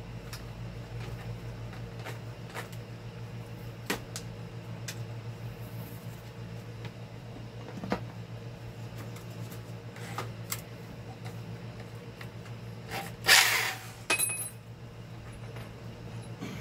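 Scattered clicks and knocks of a power drill and small tools being handled on a workbench, with a louder brief rustling scrape about thirteen seconds in, over a steady hum.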